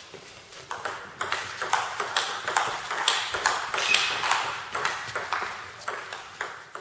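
Table tennis rally: the ball clicking off bats and table several times a second, with one bat faced with Nittaku Monophonic inverted rubber. The clicks echo in a large sports hall and come thickest through the middle.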